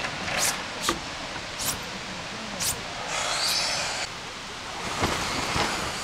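Broom sweeping a wooden deck: four short swishing strokes in the first three seconds, followed by two longer rustling sweeps.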